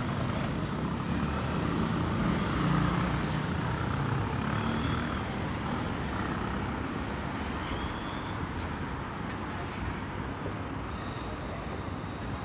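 City street traffic: cars and motor scooters running and passing, a steady hum of engines and tyres that is a little louder in the first few seconds. Two brief faint high chirps come through around the middle.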